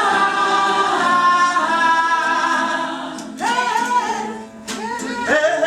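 Unaccompanied singing with no instrument: a note held for about three seconds, then shorter sung phrases.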